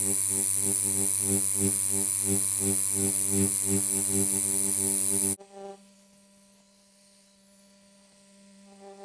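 Dragonhawk wireless rotary tattoo pen running, a steady buzz that pulses a few times a second as the needle works the skin. It cuts off suddenly about five seconds in, leaving only a faint hum.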